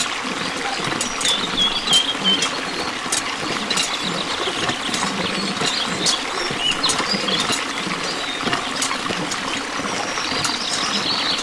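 A thin stream of water from a miniature hand pump pouring and splashing steadily into a small pool, with light clicks and a few short high squeaks between about one and two and a half seconds in.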